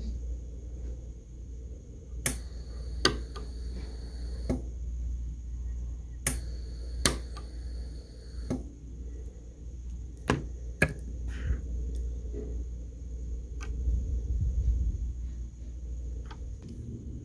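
Pulse arc micro welder firing on 316 stainless steel: sharp snaps of the weld pulses, loudest about two and six seconds in, each pair followed by a high steady tone for about two seconds, with more snaps near ten and eleven seconds, over a steady low hum.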